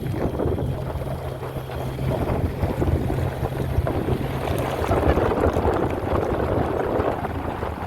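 Wind buffeting the microphone in an open convertible on the move, over the steady drone of a 1996 Mustang GT's 4.6-litre two-valve V8. The engine note changes about five seconds in.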